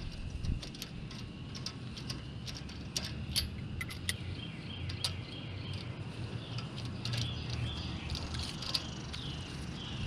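Scattered light metallic clicks and clinks of hand tools (socket, lug key) being handled and put away, over a steady low outdoor rumble.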